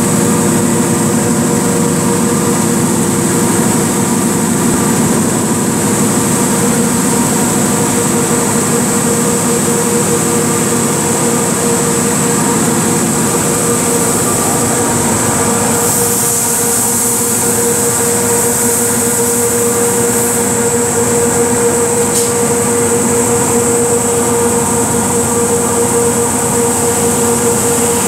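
Apex 2037M-DSS three-head deburring machine running steadily, its abrasive belt and rotating disc heads grinding slag and dross off a flame-cut steel plate. It makes a steady mechanical hum with a constant high whine.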